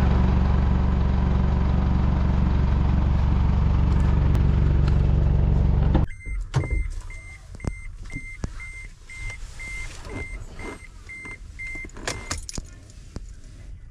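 Pickup truck engine idling steadily and loud. About six seconds in it gives way to a car's warning chime beeping about twice a second, over keys jangling and small clicks inside the cab, until the chime stops near the end.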